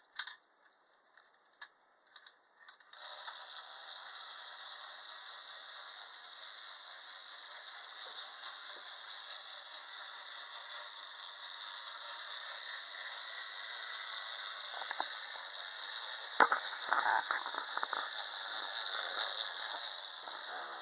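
Bachmann HO-scale DeWitt Clinton train running on its track: a steady mechanical rattle and whir of the small motor in the powered tender and the wheels on the rails, starting about three seconds in after a few light clicks. A cluster of sharper clicks comes near the end.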